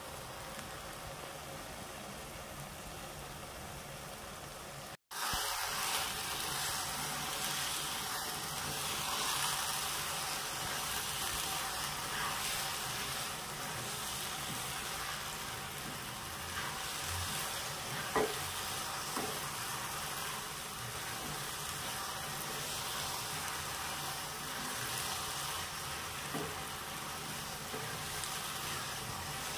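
Thick palm-jaggery mango pachadi sizzling in a nonstick pan as it cooks down, stirred with a wooden spatula. There are a few light knocks of the spatula. About five seconds in, the sound breaks off briefly and comes back louder.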